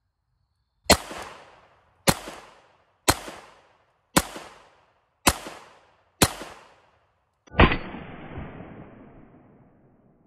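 Makarov PM pistol, 9×18mm, firing seven shots at about one a second, each a sharp crack with a short echo. The seventh shot sounds duller and rolls on for about two seconds.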